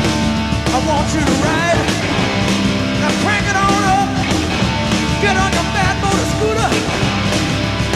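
Rock song with singing and electric guitar, loud and continuous.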